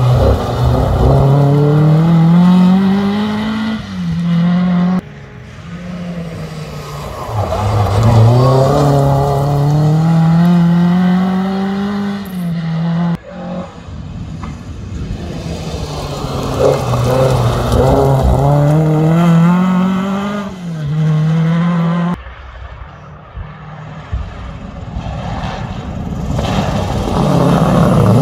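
Historic rally cars accelerating hard past on a loose gravel stage, one after another. Each engine note climbs in pitch through the revs and drops back at quick upshifts, and the passes are broken by sudden cuts between cars.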